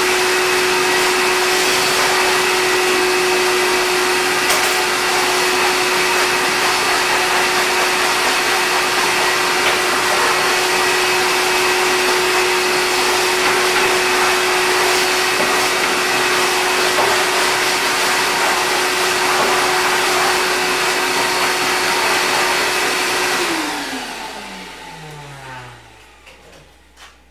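Small high-speed electric motor running steadily with a constant hum, then switched off about 23 seconds in, its pitch sliding down as it winds to a stop.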